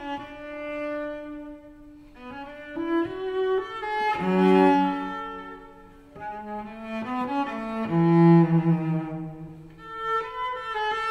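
Classical background music with long held notes that swell and fade in loudness.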